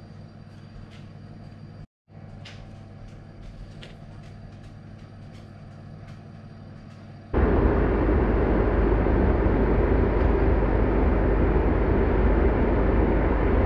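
A pot of water simmering on the hob: a steady electric hum with faint scattered ticks and pops. About seven seconds in, this gives way to the much louder, even whir of a fan oven running.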